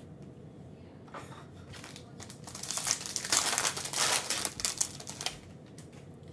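Foil wrapper of a Panini Prizm basketball card pack crinkling as it is torn open. The crinkling starts about two and a half seconds in and lasts about three seconds.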